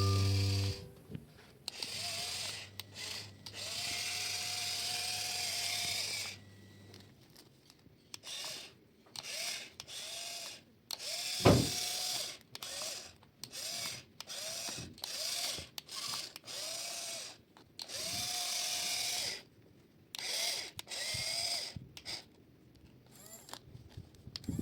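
A small electric motor running in short start-stop bursts of varying length, whining up and down at each start and stop, with one sharp click about eleven and a half seconds in.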